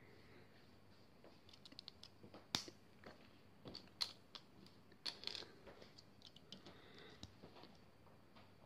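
Faint plastic clicks and taps of Lego pieces being handled, with a few sharper clicks about two and a half, four and five seconds in.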